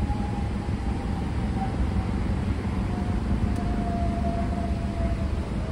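Road traffic noise: a steady low rumble of vehicle engines with a constant hum, and a faint whine that slowly falls in pitch throughout.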